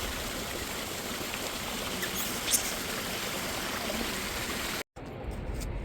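Steady rushing of running water, like a stream. It breaks off abruptly near the end and is replaced by a quieter low rumble.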